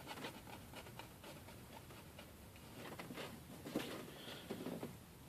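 Faint, irregular taps and short strokes of a paintbrush on a stretched canvas.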